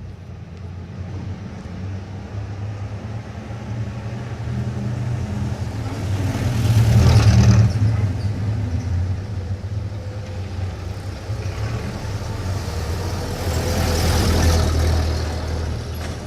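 Suburban street traffic in the style of the 1940s: a steady low rumble of engines, with one vehicle passing close about seven seconds in and another near the end.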